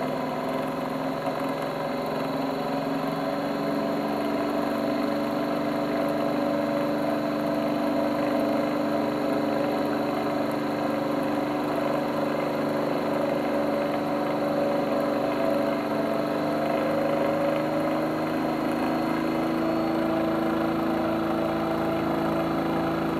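Bedini-style pulse motor driving a small AC generator, running as a steady hum of several tones that creeps slowly up in pitch as the generator gathers speed.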